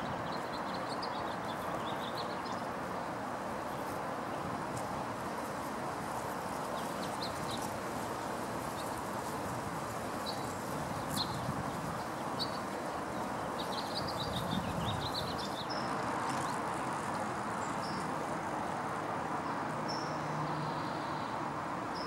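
Scattered short, high chirps and twittering from small birds over a steady background hum, with one sharp click near the middle.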